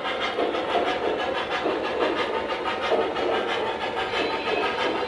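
O gauge model train cars rolling steadily past on metal track, a continuous rumble of wheels on rail with light repeated clicking.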